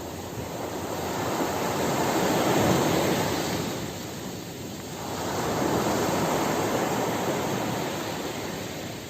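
Sea waves washing onto the shore: two surges of surf that build, peak and ebb away.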